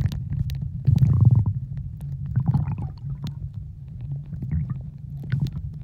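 Muffled underwater sound heard through a phone sealed in a plastic pouch: a low rumble of moving water that swells about a second in, with scattered sharp clicks and crackles.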